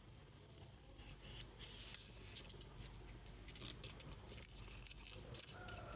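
A sheet of origami paper being handled and folded by hand: faint, irregular crinkling and rustling in short clusters, starting about a second in.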